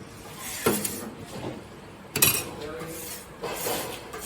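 Kitchen clatter of metal utensils and dishes clinking and knocking, with two louder clanks, one under a second in and another a little after two seconds in.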